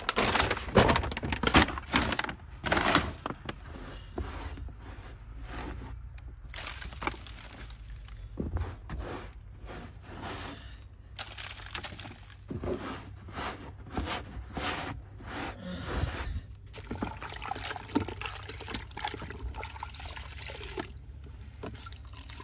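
Hand-cleaning a car's carpeted floor: irregular wet scrubbing and wiping strokes with sloshing from a bucket of cleaning water, loudest in the first few seconds.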